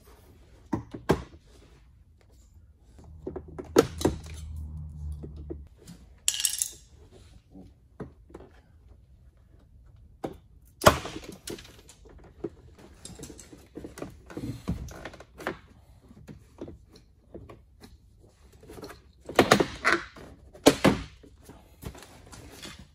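Plastic trim clips popping loose and the door card of a 2005 Peugeot 407 knocking and creaking as it is levered off the door with a plastic trim tool: a string of sharp pops and knocks, loudest about eleven seconds in and in a quick cluster near the end. A brief low hum runs for a couple of seconds about three seconds in.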